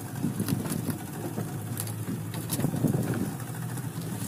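A fishing boat's engine running steadily with a low hum, with scattered knocks and clicks on top.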